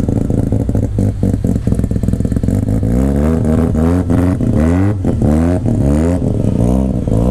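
A vehicle engine running loudly, then revved in a series of quick blips from about three seconds in, roughly one a second, its pitch rising with each blip.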